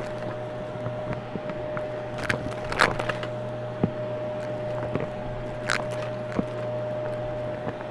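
Vacuum cleaner running with a steady motor hum as its wand sweeps the carpet, sucking up crunchy debris that crackles and clicks through the hose at irregular moments, the loudest cracks about three and six seconds in.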